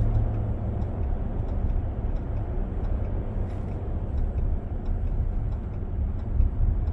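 Cabin noise inside a 2025 Ram 1500 Limited pickup on the move: a steady low rumble of road and engine, with the turn-signal indicator ticking evenly a couple of times a second.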